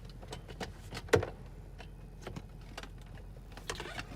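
Plastic interior trim of a Tesla Model 3 being pulled out by hand: a string of small plastic clicks and rattles, with one loud snap about a second in.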